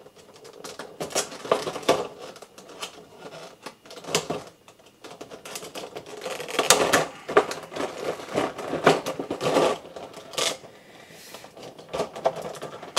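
Plastic toy packaging being handled and its tape pulled off: irregular clicks, crackles and rustles, busiest about halfway through.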